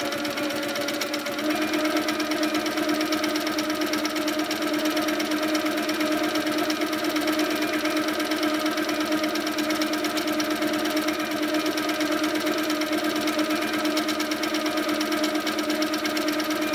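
Handi Quilter Sweet Sixteen sit-down longarm quilting machine stitching fast and continuously during free-motion quilting, its motor hum and rapid needle strokes speeding up over the first second or so, then running steadily.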